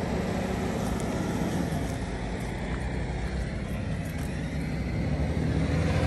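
Steady low rumble of road traffic: a motor vehicle's engine running, with a faint hiss of road noise, swelling slightly near the end.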